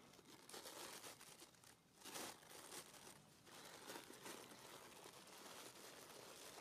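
Faint rustling and crackling, louder in short spells, the loudest about two seconds in.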